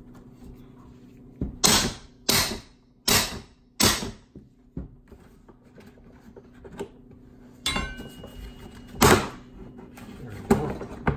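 Sharp cracks and knocks from the plastic snap clips of a Suncast Aquawinder hose reel housing being pried loose with a flat metal pry bar. Five come in quick succession in the first few seconds, then several more spread out, one with a brief metallic ring.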